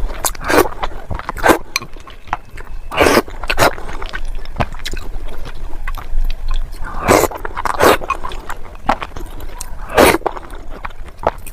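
Chewing and crunching food: irregular crunches and mouth noises, with a few louder bites about three, seven and ten seconds in.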